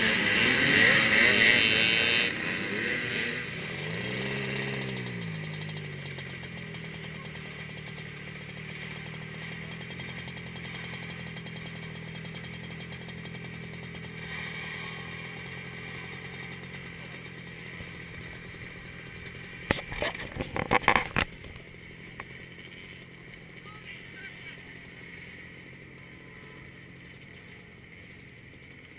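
Row of vintage dirt-bike motorcycles revving hard and pulling away at a race start, fading over the first few seconds, with one engine note dipping and rising around four seconds in. A steady motorcycle idle carries on after that, broken by a short cluster of loud knocks about twenty seconds in.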